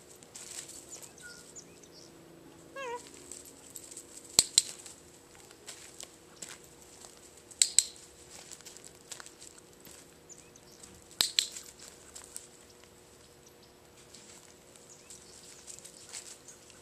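Three sharp, loud clicks: one about four seconds in, a quick double click near eight seconds, and one about eleven seconds in, over faint rustling.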